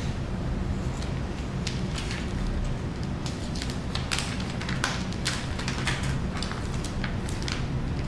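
A steady low hum, with scattered crackles and taps of window-tint film being handled and worked on a car windshield.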